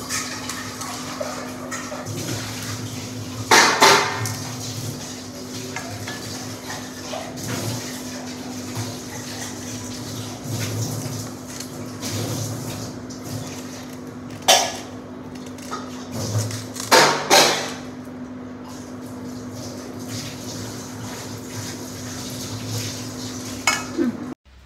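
A knife scraping and cutting kernels off a roasted corn cob into a steel bowl, with a few sharp clinks of the knife and cob against the steel, loudest about 4 s in and around 17 s.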